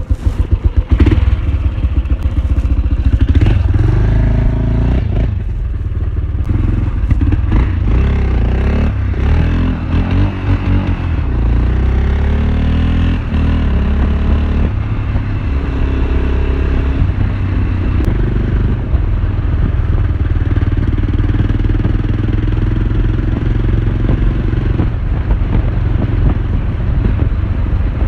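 Motorcycle engine heard from the bike itself, running unevenly at first, then pulling away with its pitch rising and falling through the gears, and settling into steady cruising.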